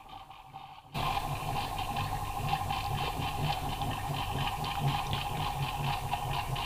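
Microwave-oven turntable motor turning a home-made rotating platform: a steady hum with a fast, regular ticking, about five ticks a second. It gets suddenly louder about a second in.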